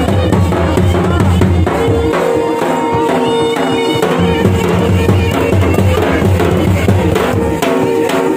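Music with drums: a melody over a steady, heavy drum beat.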